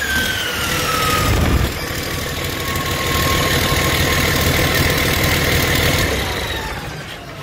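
2006 Cummins ISX inline-six diesel engine running on test, settling back from a rev: a high whine falls in pitch over the first second or so, holds steady over a low rumble, then drops again near the end as the engine gets quieter.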